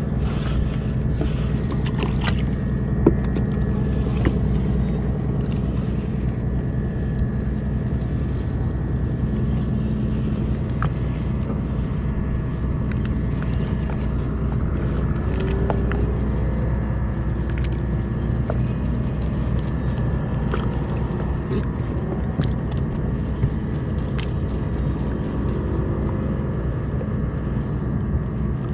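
Fishing boat's engine running with a steady low hum, with a few short sharp clicks or knocks, the loudest about three and four seconds in.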